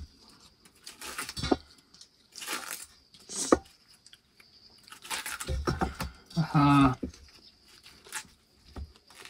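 A curved blade cutting and splitting a large ripe cucumber lengthwise into strips, heard as a series of separate short crisp cuts and tearing sounds. A short voice sound comes about two-thirds of the way in.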